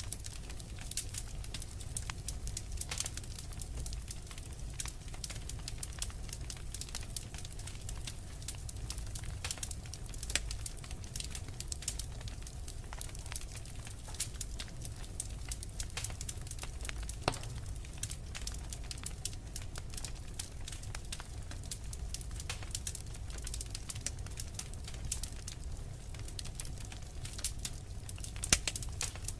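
Wood fire crackling, with frequent irregular sharp pops and snaps over a steady low rumble.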